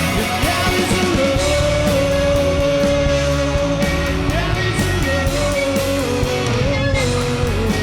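Live punk-rock band playing a song, with singing over electric guitar and a full band underneath; long held notes ring out over a steady beat.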